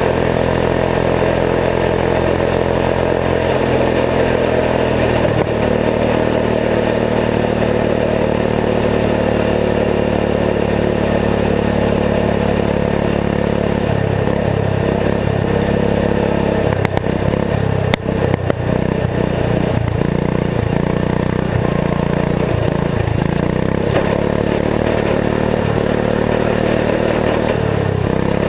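Turbocharged 14 hp single-cylinder Kohler engine of a Gilson garden tractor running under way, its engine note shifting in speed several times and going uneven in the second half. A few sharp knocks come a little past the middle.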